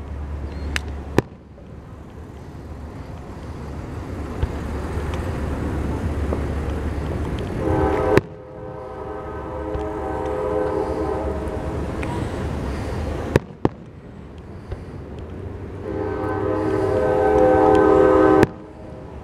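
A train horn sounds a chord of several steady tones twice, about eight seconds apart, each time cut off abruptly, over a low rumble that grows louder. A few sharp fireworks bangs fall in between.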